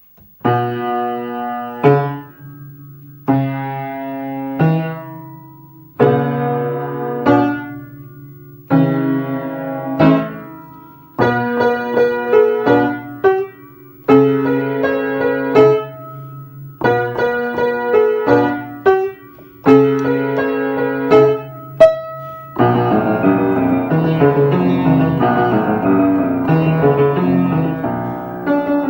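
Piano playing slow struck chords that ring and fade, one every second or two. About three-quarters of the way through, a busier, fuller passage takes over.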